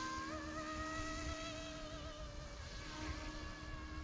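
YXZNRC F09 Black Hawk RC helicopter's electric motor and rotors whining faintly as it flies at a distance; the pitch steps up a little about a third of a second in and sags slightly later.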